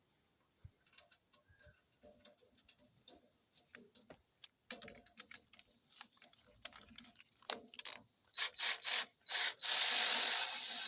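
Metal ratcheting clicks while a 3/8 thread is tapped, scattered at first and then coming in a quick run. Near the end a battery power tool's motor starts running steadily with a high whine.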